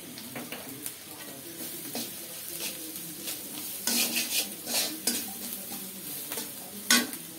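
A spatula stirring and scraping in a pan of hot oil that sizzles with cumin seeds, salt and turmeric; this is the spice-tempering stage just before the vegetables go in. The scraping gets louder about four seconds in, and there is one sharp clink of metal on the pan near the end.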